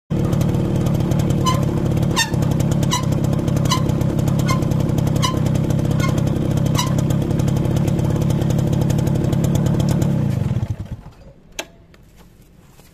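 Motorcycle engine running while the rear drum brake gives a short ringing squeak about every three-quarters of a second for the first seven seconds or so; the engine stops about ten and a half seconds in. The squeak is the rear brake noise, a bad, strange sound from the rear wheel.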